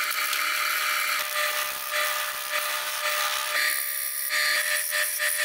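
Wood lathe running with a turning tool cutting into the face of a spinning glued-plywood disc, a steady hiss of the cut over a steady motor tone. The disc is being trued so that it runs concentric.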